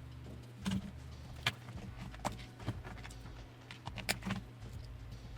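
Small clicks and taps of a Game Boy Color's plastic shell being handled and fitted back together, about half a dozen sharp ticks at uneven intervals over a low steady hum.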